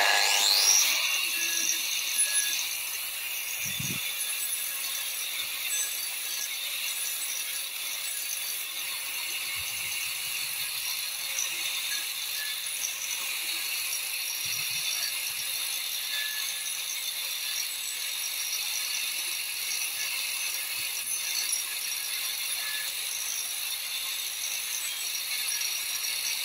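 Corded angle grinder fitted with a tungsten-carbide shaping disc starts up, then runs steadily with a high-pitched whine as it grinds down a wooden handle blank.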